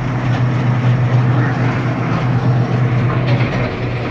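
Salem 1600 coal auger drilling machine running: a steady, loud low drone under an even rough mechanical noise.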